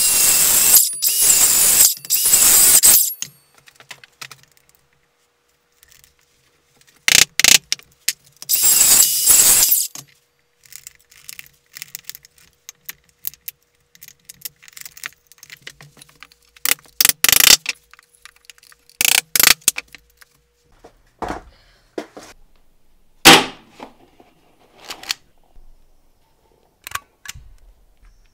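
Ryobi cordless jigsaw cutting into the end of a log in two bursts, at the start and about a third of the way in. Then a wood chisel splitting the waste off the cut log end, a string of short sharp cracks and knocks, the loudest a little over three-quarters through.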